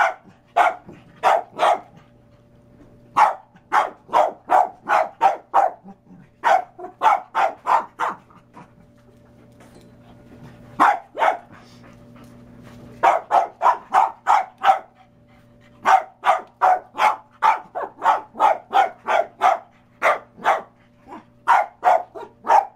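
Small brown-and-white dog barking in fast runs of sharp barks, about three to four a second, with short pauses between runs and a longer lull about halfway through.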